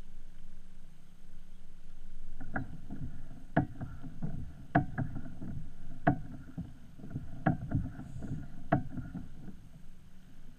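Kayak hull knocking and creaking, a sharp knock about every second over low rumbling water and hull noise, starting about two and a half seconds in.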